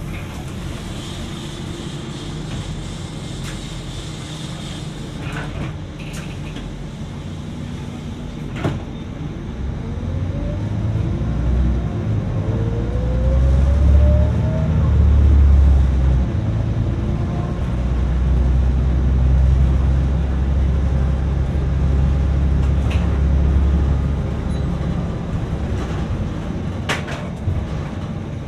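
City bus running: a low engine rumble swells as it gathers speed, with a rising whine about ten seconds in, then eases off near the end. A few sharp knocks or rattles are heard along the way.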